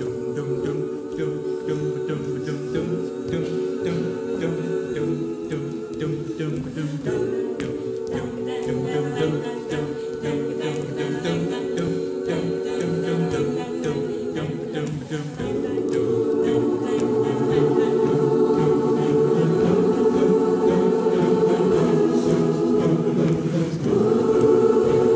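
Large mixed choir singing a cappella in held, wordless chords that shift every few seconds over a steady rhythmic pulse, growing louder about fifteen seconds in and again near the end.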